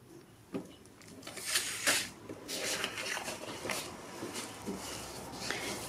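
A stack of scrapbook papers being handled on a cutting mat: a light knock, then paper sliding and rustling, loudest about two seconds in, carrying on more softly after.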